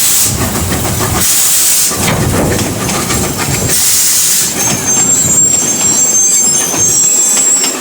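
Steam locomotive working slowly, with three loud hissing exhaust beats about two seconds apart. From about five seconds in comes a thin high-pitched squeal of wheels on the rails.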